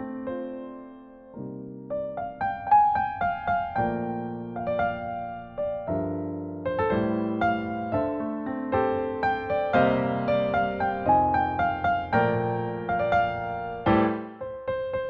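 Background piano music: soft keyboard chords and melody notes.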